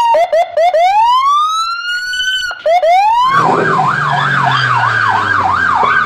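Police car electronic siren: a few short rising chirps and one long rising whoop, then about three seconds in it switches to a fast up-and-down yelp, about two to three cycles a second, over a low hum.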